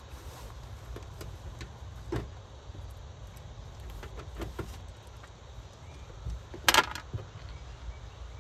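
Light clicks and metal clinks from handling a desktop computer case and the video card's bracket screws, with one louder metallic clatter near the end, over a low steady rumble.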